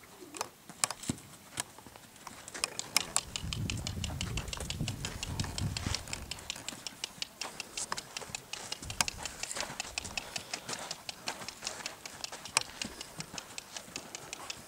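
Hoofbeats of a red roan Quarter Horse yearling colt moving around a sand round pen: a run of quick sharp clicks and thuds. A low rumble comes in about four seconds in and lasts a couple of seconds.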